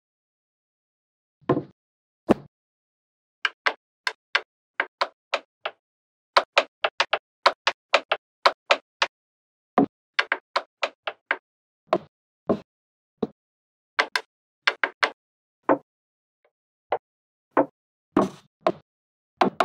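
Small wooden blocks and strips clicking and knocking as they are set down one at a time on a wooden base board and against each other: a long irregular run of sharp taps, quickest in a rapid series in the middle, with silence between them.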